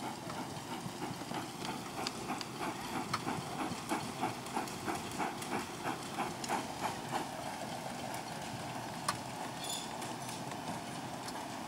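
Miniature steam locomotive chuffing as it runs slowly by, with regular exhaust beats about three a second that fade after about seven seconds. A single sharp click comes near nine seconds.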